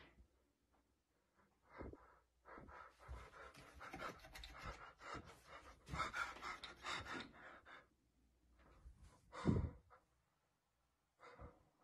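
Faint, irregular panting breaths, followed by a single dull thump about nine and a half seconds in.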